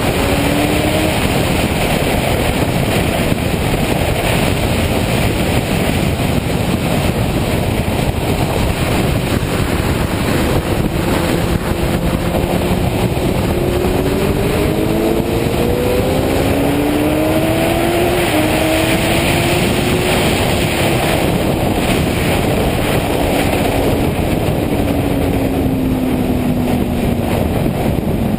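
Suzuki GSX-R sport bike's inline-four engine at track speed under heavy wind rush on the microphone. Its pitch climbs in steps through several upshifts around the middle, then falls away near the end.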